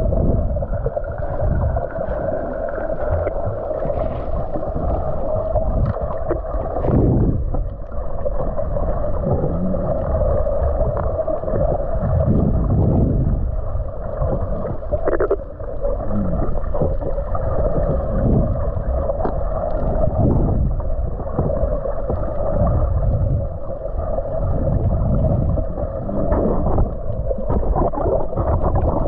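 Muffled water sound as heard underwater: a steady drone with irregular low sloshing surges.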